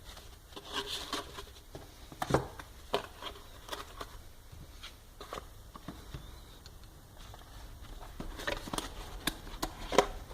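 Irregular clicks and light knocks of small objects being handled, with a sharper click about two seconds in and another near the end.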